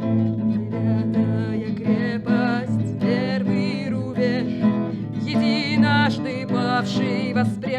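Acoustic guitar playing a song's accompaniment, joined by a woman's singing voice about two seconds in.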